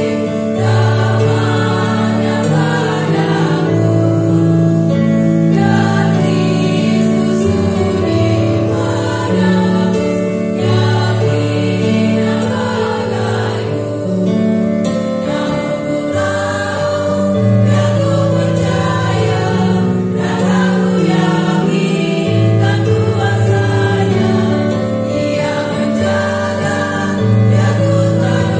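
Women's vocal group singing a hymn in several-part harmony, accompanied by an electronic keyboard holding long bass notes.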